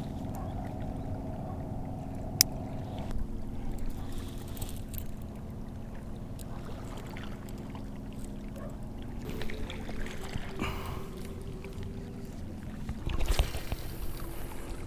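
A motorboat engine drones steadily across the water, its pitch shifting a few times. A single sharp click comes about two and a half seconds in, and a brief rush of noise near the end.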